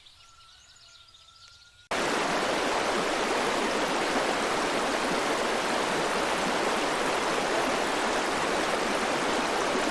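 Steady rush of flowing water, like a stream or waterfall, starting abruptly about two seconds in and holding even throughout.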